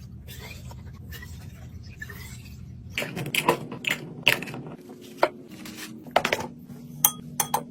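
Low steady hum, then from about three seconds in, a run of sharp clinks and knocks as dishes and food containers are handled and set down.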